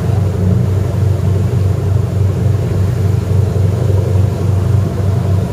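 Tender boat's engine running steadily under way, heard from aboard as a loud, even low drone.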